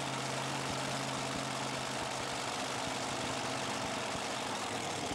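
Supercharged engines of a multi-engine modified pulling tractor idling steadily.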